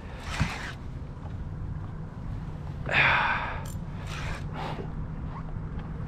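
Heavy, hissing breaths of an angler straining against a large fish on the rod, the strongest about three seconds in, over the steady low hum of a boat motor.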